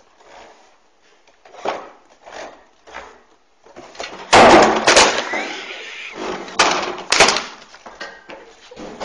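Low rustling for the first few seconds, then about four seconds in a sudden loud bang and clatter of chairs and desks as people jump up and scramble away, with another pair of sharp knocks around seven seconds as a chair is knocked over.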